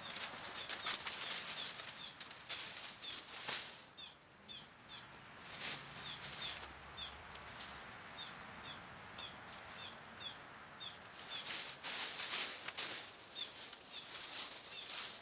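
Rustling and crackling of leaves and brush, coming in bunches, with one sharp crack about three and a half seconds in. A faint high chirp repeats about twice a second behind it.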